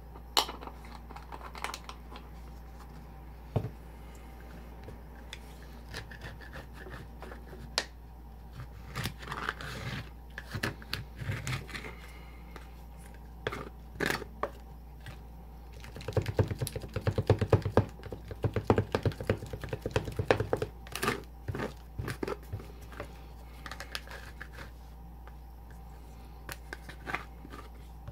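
Plastic spatulas tapping, chopping and scraping a freezing cream-and-cheese mixture on the chilled metal plate of a home ice-pan maker, in irregular clicks and scrapes. The taps grow faster and louder for a few seconds past the middle, then thin out again.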